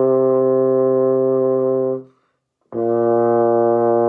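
A euphonium plays two held whole notes near the end of a descending concert B-flat scale. The first, a concert C, ends about two seconds in. After a short gap for a breath, the low concert B-flat begins, a step lower.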